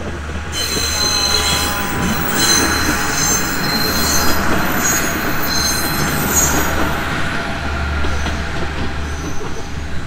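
KiHa 110 diesel railcar passing at close range, its engine running under continuous rail rumble, with high-pitched wheel squeal through most of the pass that fades after about seven seconds.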